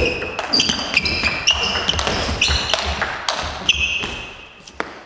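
A table tennis rally: the ball clicks sharply off the bats and table in quick succession, several hits a second. Many of the clicks are followed by short, high ringing squeaks. The rally stops near the end.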